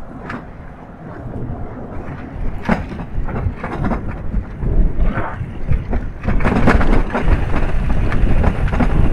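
Wind buffeting the camera microphone, with tyre rumble and knocks from an electric bike riding along a tarmac towpath. The rumble grows louder about six seconds in as the bike picks up speed.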